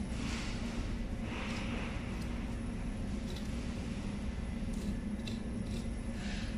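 Steady low machinery hum in a commercial kitchen, with a few faint soft scrapes as a knife cuts through raw pork.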